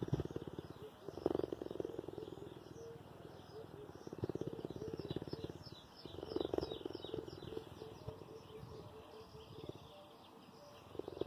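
Cheetah purring close up, a continuous rhythmic purr that swells louder every few seconds with each breath. Birds chirp in the background.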